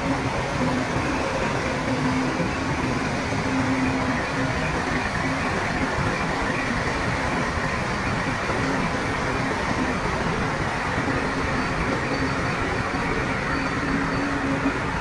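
Heavy diesel earth-moving machinery running steadily under work, a constant engine drone over a dense mechanical rumble.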